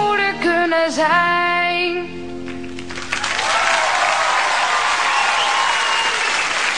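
A boy's voice sings the last gliding notes of a pop song, and the song ends about two seconds in. From about three seconds in, a studio audience applauds and cheers.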